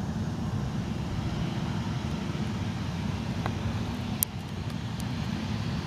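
Low, steady rumble of a Boeing 737's jet engines as the airliner rolls along the runway. A sharp click comes about four seconds in.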